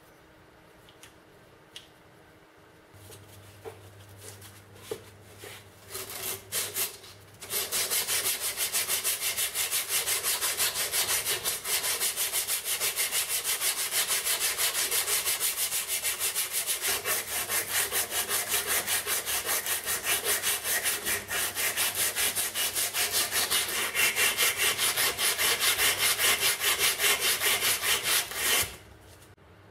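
A strip of abrasive cloth worked rapidly back and forth, shoe-shine style, around a pitted steel mortar part clamped in a vise, giving a fast, rhythmic, rasping rub. It is preceded by a few seconds of light clicks and knocks as the part is handled, and the rubbing stops abruptly near the end.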